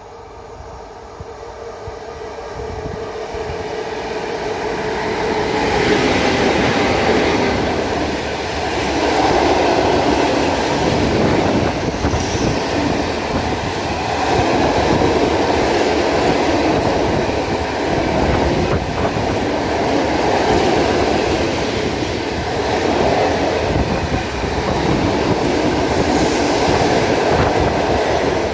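Freight train of open coal wagons hauled by an ET41 electric locomotive passing close by. It grows louder over the first five seconds, then the wagons roll past in a steady loud rumble and clatter that swells and eases every few seconds.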